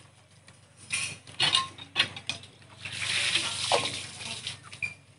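Steel plates and bowls clinking and scraping as rice is mixed and eaten by hand: scattered sharp clicks, then a longer scraping stretch about three seconds in.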